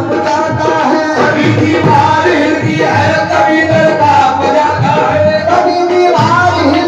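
Qawwali music: a melodic line carried over steady tabla drumming.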